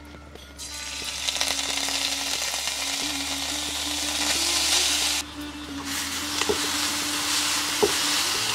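Grated coconut and jaggery sizzling loudly as it hits hot ghee in an iron kadhai and fries, with a few sharp clicks near the end.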